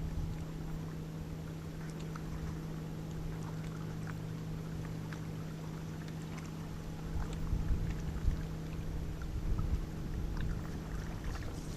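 A boat's motor hums steadily at one low pitch, with a few faint clicks over it. From about seven seconds in, wind gusts rumble on the microphone.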